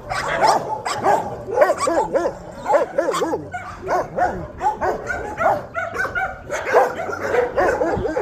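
A dog yipping and whining in a steady stream of short calls, each rising and falling in pitch, several a second.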